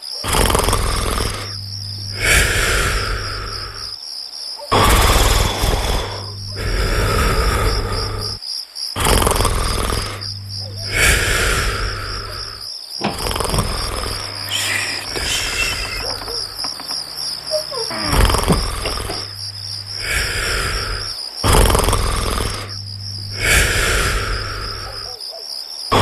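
A person snoring, a loud snore every couple of seconds, over steady chirping crickets and a low hum.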